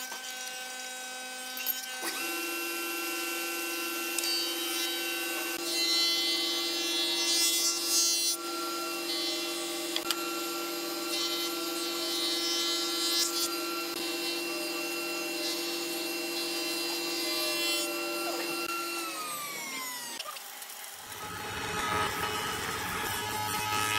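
Spindle moulder (wood shaper) running with a steady motor hum and whine, its cutter milling a groove along a wooden board, with a louder hiss of cutting about six to eight seconds in. Near the end the motor note falls away as the machine winds down, and a noisier cutting sound takes over for the last few seconds.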